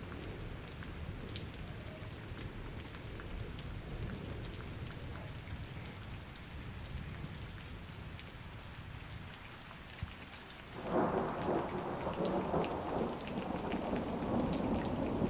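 Recorded thunderstorm: steady rain with scattered drops and a low, distant rumble. About eleven seconds in, a loud roll of thunder breaks in and rumbles on.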